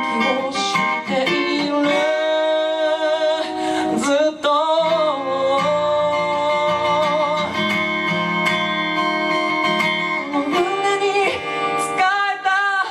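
Live song with acoustic guitar accompaniment and a voice holding long, wavering sung notes.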